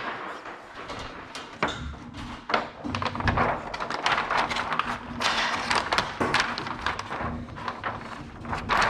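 Irregular rustling with many scattered taps and knocks, the sound of hands-on handling work.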